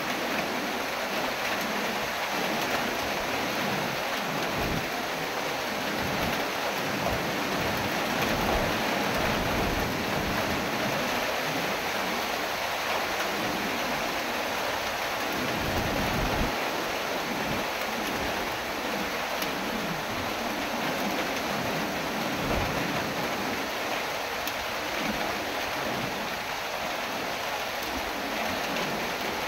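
Heavy tropical-storm rain pouring steadily, with strong wind gusting through the trees. Irregular low rumbles of wind buffeting the microphone come and go, the strongest about halfway through.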